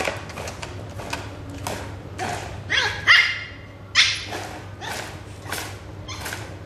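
Pomeranian giving a few short, high barks about three to four seconds in, between light taps and knocks on the hard floor as it plays at a plastic mesh wastebasket.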